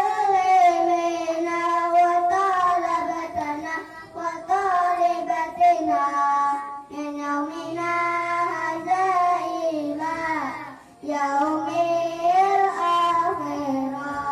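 A group of young children singing a melody together in unison, one boy singing into a microphone, with a short break between phrases about ten seconds in.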